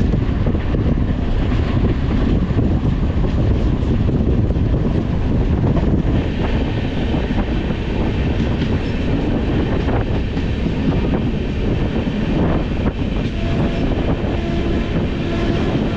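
Express passenger train running at speed, heard from an open coach door: a loud, steady rumble and clatter of the wheels on the rails. The hiss rises about six seconds in.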